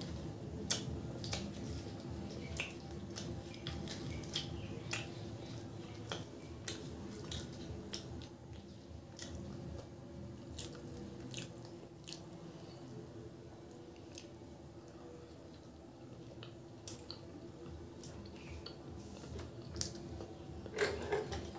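Close-miked chewing of puri and curry: soft wet mouth clicks and smacks scattered irregularly, a little busier near the end, over a faint steady hum.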